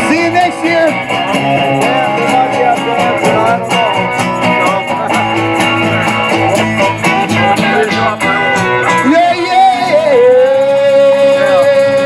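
Live band playing electric and acoustic guitars, with a tambourine shaken in a steady beat. Near the end one high note is held for about two seconds.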